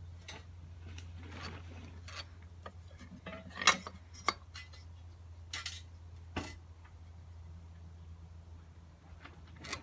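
Scattered clicks, taps and knocks of hand tools and a wooden workpiece being picked up and set down on a workbench, the loudest knock a little under four seconds in, over a steady low hum.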